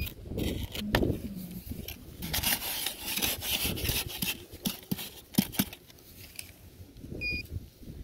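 Bare hands scraping and digging in dry soil and tearing a weed out by its roots: a rough scratching and rustling, with a few sharp clicks about five seconds in.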